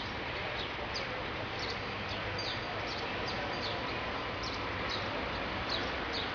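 Small birds chirping: short, high, falling chirps repeated about twice a second, over a steady hiss of city background noise.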